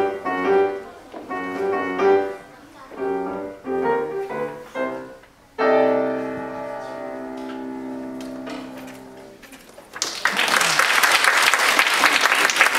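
Grand piano playing the closing phrases of a piece and ending on a loud held chord that slowly dies away. Audience applause breaks out for the last few seconds.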